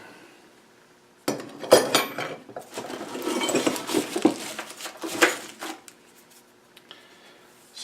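Metal angle-grinder guard being handled and fitted against the grinder head: a clatter of light metal clinks and scrapes starting about a second in and lasting about four seconds.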